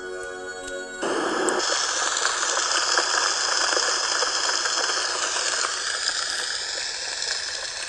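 Sharper Image sound machine played at full volume: a soothing track of several held tones for about a second, then an abrupt switch to a loud, steady recorded rushing-water sound.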